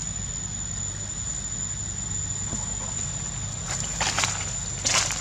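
Dry leaf litter crackling and rustling in a few short bursts from a little past halfway, over a steady low rumble and a thin, steady high tone.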